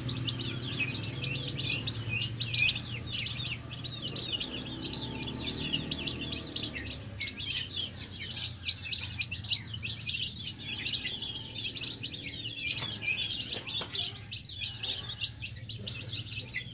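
A group of ayam kampung chicks peeping continuously in rapid high chirps while feeding, with a few sharp taps as they peck at feed in a plastic dish. A low steady hum sits underneath through the first half.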